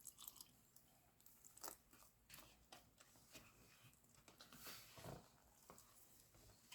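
Near silence, with faint scattered clicks and soft scrapes of pancake batter being mixed in a bowl.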